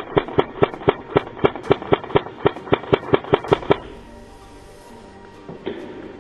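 Airsoft gun firing a rapid string of sharp pops, about five a second, for nearly four seconds, then two or three more pops near the end.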